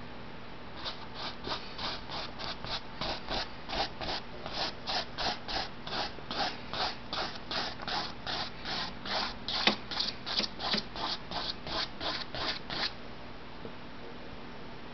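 Paintbrush scrubbing short strokes of oil paint onto a canvas, about three strokes a second in a steady rhythm, stopping about thirteen seconds in.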